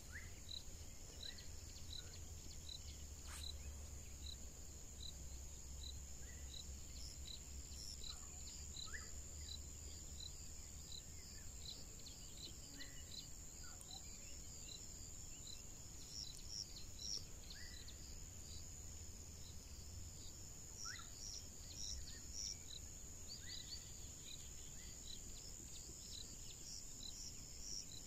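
Insects chirping steadily: a regular run of short chirps, about two to three a second, over a continuous high-pitched drone, with a few brief bird calls scattered through.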